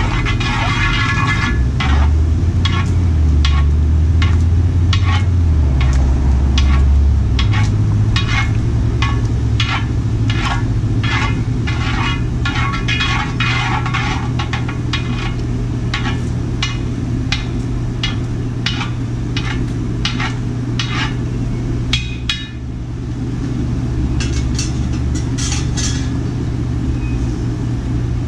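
A propane burner running steadily under a disco wok of boiling water, with a quick run of scraping and clinking strokes of a utensil against the wok, about two or three a second, as the pan is scrubbed clean. The strokes thin out and stop for a moment about three quarters of the way through.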